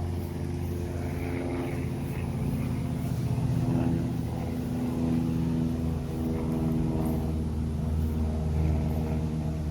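An engine running steadily with a low hum that rises and falls slightly in pitch.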